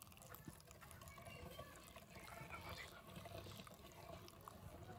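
Hand-cranked cast-iron meat grinder mincing raw meat: faint wet squelching as the meat is forced through the grinding plate, with light ticks from the turning mechanism.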